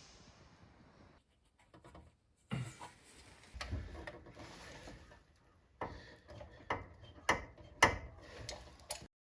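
Scattered knocks and clicks with faint rubbing, like tools or parts being handled. They come more often in the second half, and no engine is running.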